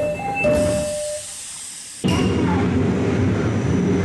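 Two-tone electronic door chime of an Odakyu 3000-series commuter train, a high note then a low note, repeating and stopping about a second in. About two seconds in it cuts suddenly to the steady running noise of an electric train on the rails.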